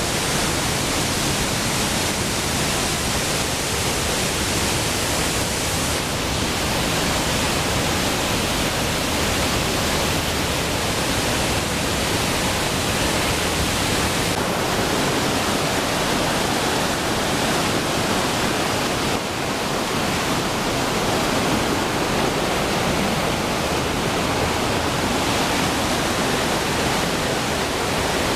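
Gitgit Twin Falls, a pair of waterfalls, with the loud, steady rush of falling water.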